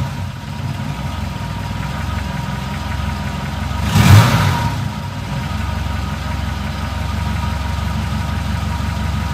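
BMW E21 315's 1.6-litre four-cylinder engine idling steadily, still cold after a start in sub-zero weather, with one brief rev about four seconds in.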